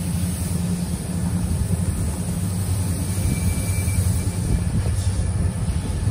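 EMD diesel locomotive engines running, a steady low drone with a deep hum.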